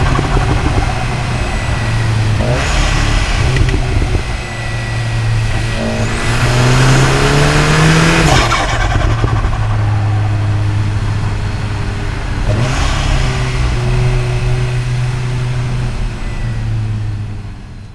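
The Cupra Ateca's turbocharged EA888 four-cylinder is running under way, heard through microphones at the intake and exhaust. Its note rises under acceleration, with a rush of intake noise and a rising high whine, then drops sharply about eight seconds in as the throttle is released or a gear is changed. The sound fades out near the end.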